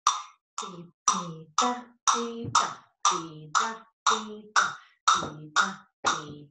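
A pair of flamenco castanets played with single strokes alternating right and left hand at an even pace of about two a second. Each stroke is a sharp click with a short ring, and the two hands sound at slightly different pitches.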